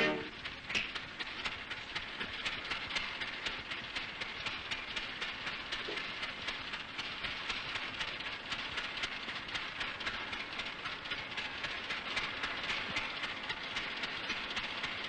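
Toyota Highlander 2.4L four-cylinder engine running with a steady ticking knock. The mechanics put the knock down to a worn piston pin in the third cylinder, together with a worn bushing in the first cylinder and wrongly adjusted valves.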